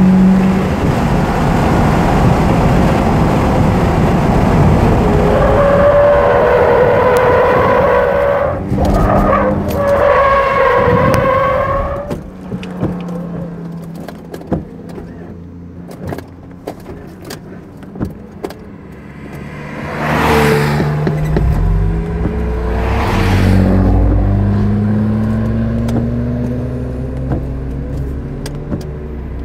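Porsche 968's inline-four engine and tyres as the car spins out at around 70 mph: loud engine and tyre noise with wavering squeals, cutting off about twelve seconds in as the car comes to rest. The engine then idles with scattered clicks and revs twice from about twenty seconds in as the car pulls away slowly.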